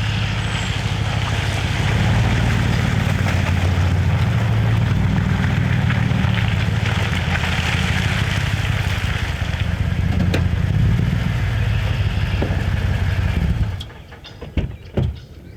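An engine running steadily, which cuts off abruptly near the end and is followed by a few sharp knocks.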